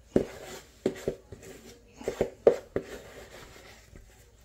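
Kitchen utensils knocking together as cake mixture is worked into a tin: about seven sharp knocks with a short ring, a pair in the first second and a quicker cluster around two seconds in.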